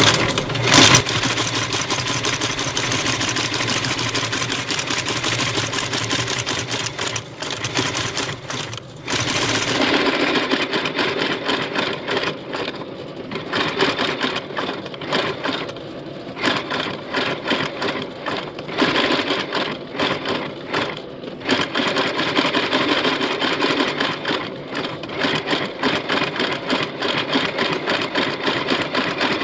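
Outsole stitching machine running, stitching through a rubber lug sole and welt with a rapid, steady mechanical clatter. Its sound changes about a third of the way in, and it dips briefly several times as the boot is turned and fed along.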